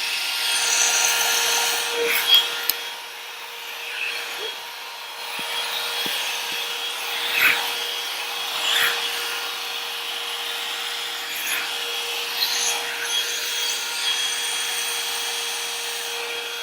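One-step hot-air brush (hair dryer brush) running on its high setting: a steady motor whine over the hiss of blowing air, with a few brief scrapes as the brush works through thick coily hair.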